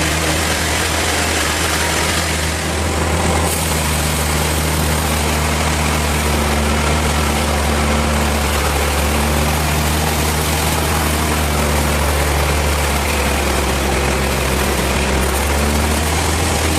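Sawmill machinery running steadily: a deep, even engine drone under a constant hiss.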